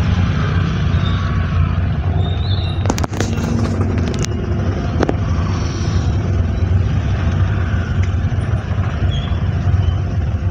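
Car moving in heavy rain, heard from inside the cabin: a steady low road-and-engine rumble under an even hiss of rain and wet tyres. A few sharp clicks come about three to five seconds in.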